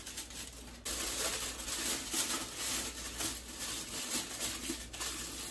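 Aluminium foil crinkling and crackling as it is pressed and tucked around a mixing bowl over a pot, sealing the gap where steam escapes from a makeshift double boiler. It starts sharply less than a second in.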